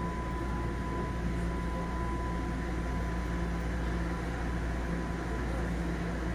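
Steady electrical and ventilation hum of a Toronto Rocket subway car standing at a station with its doors open, with a low rumble and a thin, steady high tone over it.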